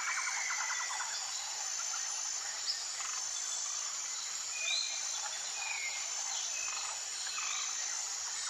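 Jungle ambience: a constant high insect drone with short, evenly repeated high buzzing notes over it. A fast pulsing trill, like a cricket or frog, stops about a second in, and a few short bird chirps come in the middle.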